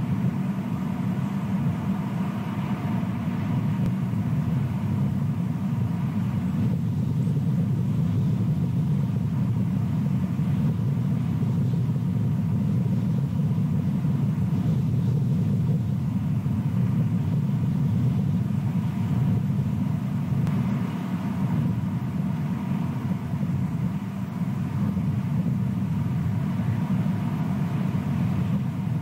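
Steady low rumble with a faint, even hum above it, unchanging throughout; no distinct calls or impacts.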